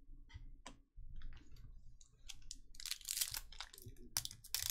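Trading cards clicking and sliding against each other as they are handled, then a foil card pack wrapper crinkling and tearing open from about three seconds in.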